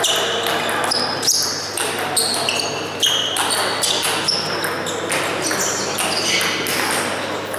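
Table tennis rally: the celluloid ball clicking again and again off bats and table in a long chop-defence exchange, with short high squeaks among the hits. The hall's echo and chatter from other tables run underneath.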